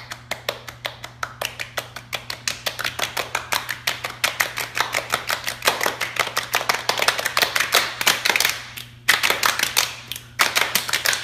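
Many children's hands slapping a wooden floor in a fast rhythm, like a drumroll, speeding up and growing louder, with two brief pauses near the end.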